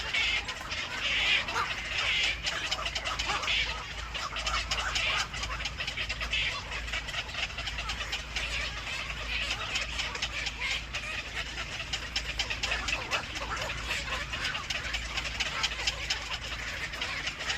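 Birds chirping: rapid, dense high calls, busiest in the first four seconds.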